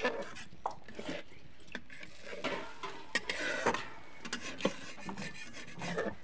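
Metal spatula stirring a watery fish curry in an aluminium kadhai, scraping and clinking against the pan at irregular moments.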